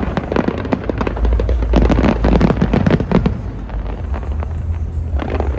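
Aerial fireworks bursting in dense crackling volleys over a deep rumble. The crackling is thickest about two to three seconds in.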